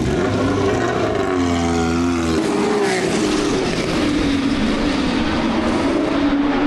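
Racing car engines running hard, their pitch rising and falling as they pass and change speed.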